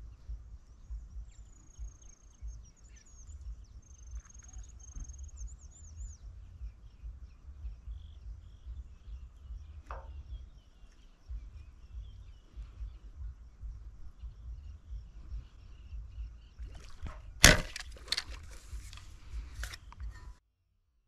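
Wind rumbling on the microphone with birds chirping, then, about 17 seconds in, a sharp loud crack as a wooden rubber-band fish-shooting speargun is fired, followed by a couple of seconds of rattling clicks.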